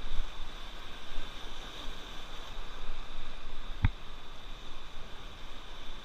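River water rushing and splashing around an inflatable raft, a steady noisy wash, with one sharp knock about four seconds in.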